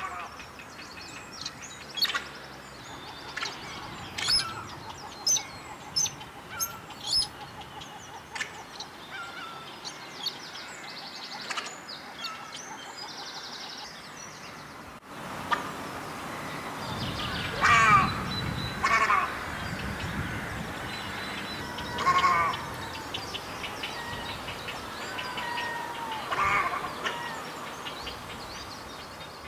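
White-browed crake calling. At first there are scattered short, sharp notes. About halfway through, louder nasal chattering calls come in a few separate phrases.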